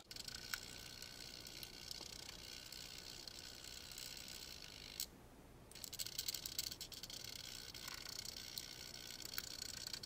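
Small servo-driven model railroad switch machine running faintly, with a few light clicks and a slightly louder stretch of mechanical movement about six seconds in.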